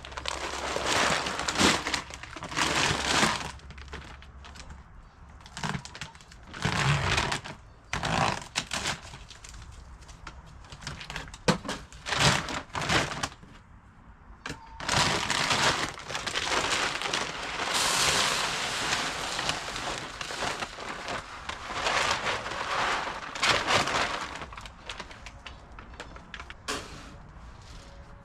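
Irregular bursts of rustling and crackling, each a second or two long, with scattered sharp clicks, as of things being handled.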